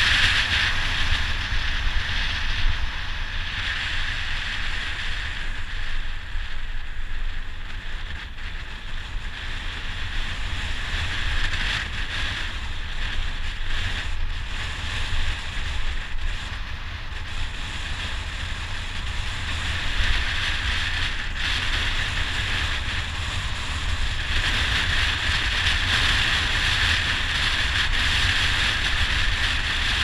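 Wind buffeting the camera microphone as a bicycle descends at speed: a steady low rumble with a hiss over it. The hiss grows louder near the end.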